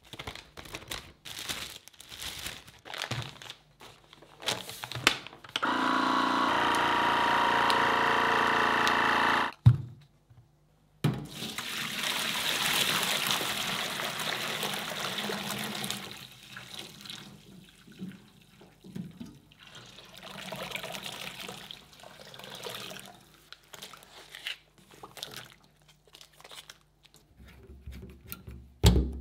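Plastic bags crinkling. Then a loud steady whirr for about four seconds that cuts off suddenly, a knock, and several seconds of water poured from a large stainless-steel pot into the empty stainless-steel tank of a Hendi bain-marie. Near the end there are light handling sounds and a sharp knock.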